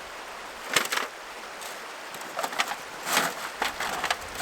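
Disposable barbecue being unpacked and handled: short crinkling, clattering bursts, one about a second in and several more between two and a half and four seconds in, over a steady rush of river water.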